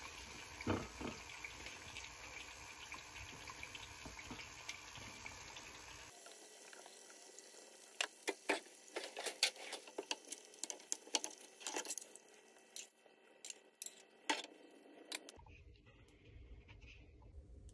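Kitchen utensils clicking and clinking against ceramic plates and a pan as food is plated, a quick irregular run of light clinks in the middle. A steady hiss runs underneath in the first few seconds.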